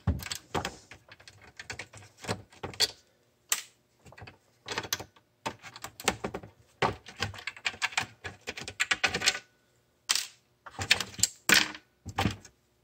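Irregular clicks and taps of a hand screwdriver working at screws in a digital scale's plastic housing, with small hard parts knocking against the plastic, in uneven clusters with short pauses.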